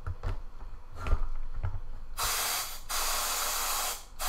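Canned-air duster blowing through its straw into the inside of a 4x4 puzzle cube, to dry the silicone lubricant: a loud hiss of nearly two seconds from about halfway through, broken once briefly. Before it come a few faint knocks of the cube and can being handled.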